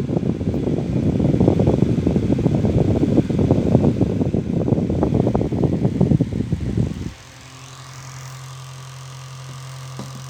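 Antique Hoover electric fan running, its air stream buffeting the microphone with a gusty rumble; about seven seconds in the rush cuts off suddenly, leaving the fan motor's steady hum.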